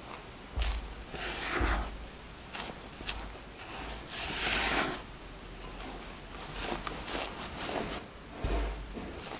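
Spatula folding and scraping macaron batter, sifted almond flour and powdered sugar being worked into meringue, against the sides of a glass mixing bowl. It makes irregular swishing scrapes, the longest about four to five seconds in, with a few dull low bumps near the start and again near the end.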